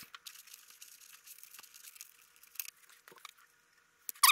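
Faint scattered clicks and rustling of hands handling small parts and tools, with a short, loud clatter of clicks near the end.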